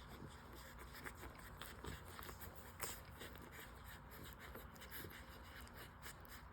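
Newborn French Bulldog puppies nursing: faint, irregular suckling clicks and rustling.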